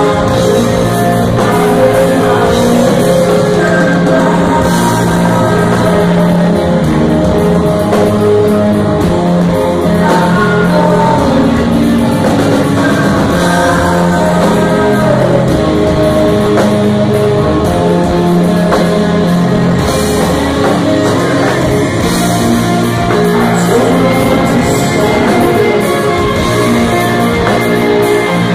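Rock band playing live with a sung lead vocal over electric guitars, bass and drums, picked up loud from the audience.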